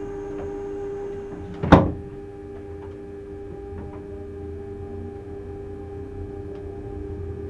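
Cab of a Rhaetian Railway ABe 4/4 electric railcar moving off slowly: a steady electrical hum made of several held tones, one loud clunk about two seconds in, and a low rumble from the running gear that grows after it.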